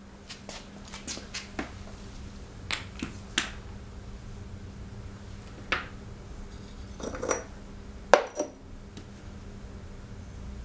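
Scattered light metallic clicks and clinks of hand tools and engine parts being handled during flywheel removal on a Briggs & Stratton lawn mower engine, over a faint steady hum.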